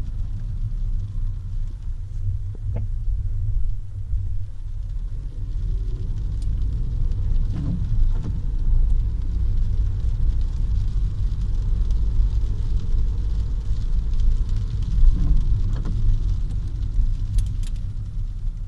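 Skoda Fabia TSI driven over a bumpy road: a steady low road rumble with a few short knocks, two of them close together about eight seconds in, the strange noises the car makes on rough surfaces.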